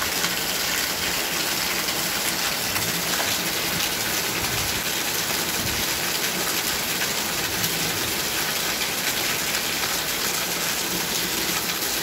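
Water gushing steadily into a Panasonic top-loading washing machine's tub as it fills at the start of a wash cycle. The machine is running without an error after its door interlock repair.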